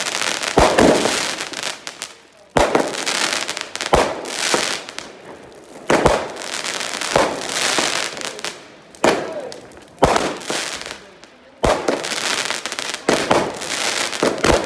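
Fireworks going off: a string of sharp bangs one to two seconds apart, with crackling and hiss from the bursting aerial shells in between.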